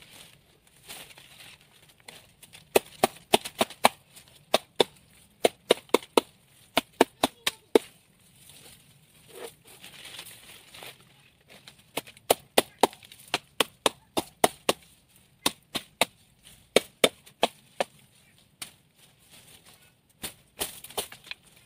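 Wood being chopped with a blade in quick, sharp blows, about three or four a second, in three runs separated by short pauses.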